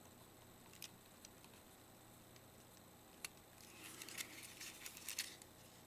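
Near silence with a few faint small clicks, and a short spell of light clicking and rustling near the middle, as small camera parts and a ribbon cable are handled.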